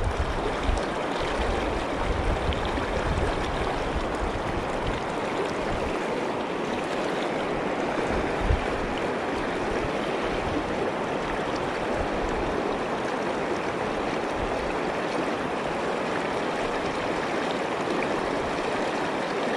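Steady rush of a fast river current running over stones. Low wind buffeting on the microphone shows in the first second, and there is one brief low bump about eight and a half seconds in.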